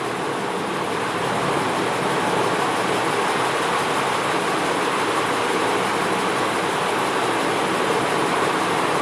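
Spice paste of ginger, garlic and green chilli sizzling steadily in hot oil in a kadai while the masala is stir-fried.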